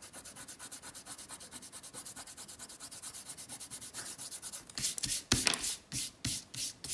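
Fingertips rubbing rapidly back and forth over textured watercolor paper, about ten strokes a second, lifting dried masking fluid off the painting. Near the end the strokes change to a few slower, louder swipes of the hand across the paper, brushing the rubbed-off bits away.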